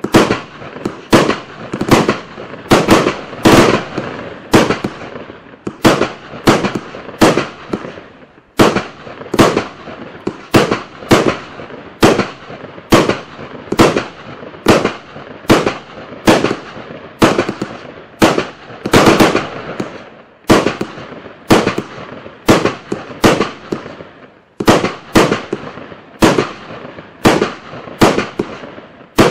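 Klasek 'Fireworks show 300' cake, a 300-shot, 25 mm calibre consumer fireworks battery, firing shot after shot: sharp bangs at a steady pace of about two a second, each with a short fading tail.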